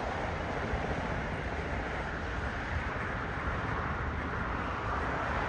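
Boeing 767 jet engines running at taxi idle just after landing: a steady, even noise with no distinct whine.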